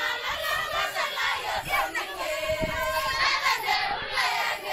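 Maasai women singing a traditional dance song together, many voices overlapping at once.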